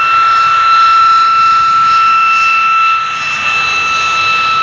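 de Havilland Vampire's Goblin turbojet running as the jet taxis past, a loud, steady high whistle over jet noise. The sound eases slightly about three seconds in.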